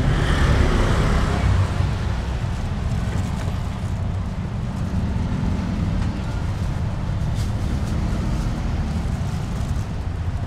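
Steady low rumble of road traffic, a little louder in the first second or two, with faint background voices.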